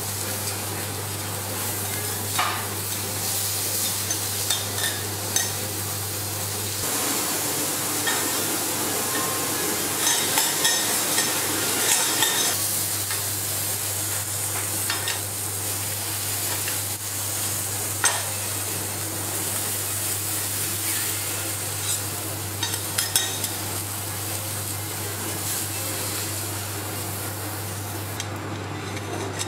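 Scallops sizzling on a hot steel teppanyaki griddle, with metal spatulas scraping and tapping on the plate now and then.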